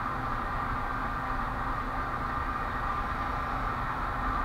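Steady background hum and low rumble with a faint constant whine, unchanging throughout, with no distinct handling clicks.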